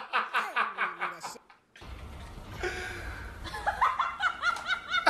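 A man laughing hard in quick, repeated "ha" bursts that stop about a second and a half in. After a short break, a low background rumble comes in and more short bursts of laughter follow near the end.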